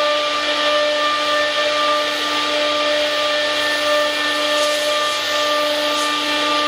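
CNC wood router spindle running at a constant speed, giving a steady multi-tone whine, over a continuous rushing hiss of air.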